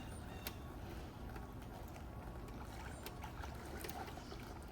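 Faint water sloshing and trickling, with a few light ticks.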